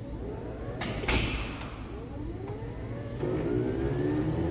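LiftMaster 98022 garage door opener's motor and gear assembly: a click and a thump about a second in, then a whine that rises steadily in pitch, with a harsher buzzing sound near the end. The motor/gear assembly is faulty.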